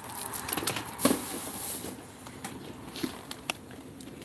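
Rustling and light clicking of boxed chocolates and their plastic wrapping being handled, busiest in the first two seconds with a sharp crinkle about a second in.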